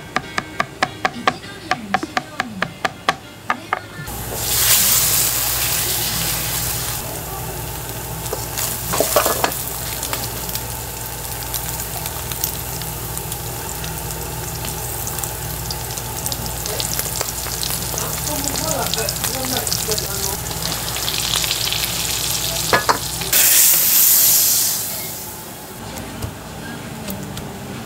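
A quick run of sharp knocks on a cutting board, about four a second, gives way a few seconds in to egg-coated meat hitting hot oil in a wok. It sizzles loudly, then fries steadily over a low drone, with a single ladle knock. Near the end there is a second loud surge of sizzling, then the drone stops and the frying dies down.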